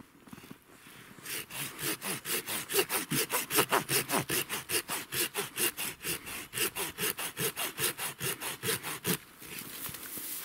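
Maidura folding saw cutting by hand through a living spruce trunk: quick, even back-and-forth strokes of the teeth rasping through green wood. The sawing starts about a second in and stops about a second before the end, as the stem is cut through.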